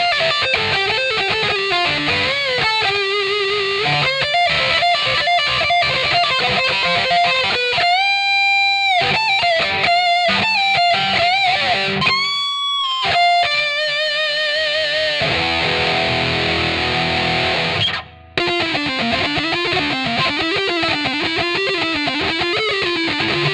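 Ibanez RC720 Premium electric guitar with its Core-Tone humbuckers, played through distortion: a lead solo line with bends, long sustained notes and wide vibrato. The sound cuts out briefly about three-quarters of the way through.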